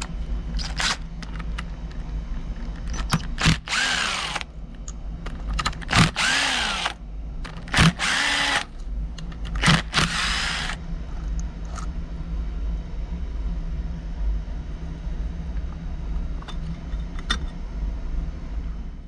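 A handheld power driver run in four short bursts of about a second each, its motor speeding up and slowing down each time, with metal clicks between bursts over a steady low hum.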